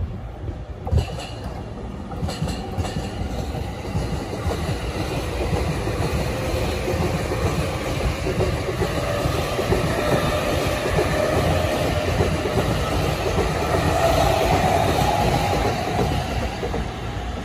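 Electric commuter trains at a platform: an E217-series train rolls to a stop while a train on the next track runs past. The rumble of wheels on rail builds to its loudest about fourteen seconds in, then eases.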